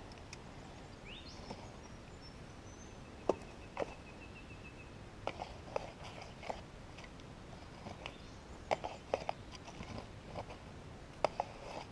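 Faint, scattered crunches, scrapes and clicks of gravelly soil being dug and scraped with a small hand pick and fingers while uncovering a shallow target.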